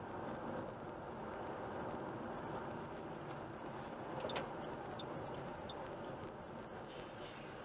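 Steady road noise of a car driving at highway speed, heard from inside the cabin: tyre and engine noise at an even level, with a brief click about four seconds in.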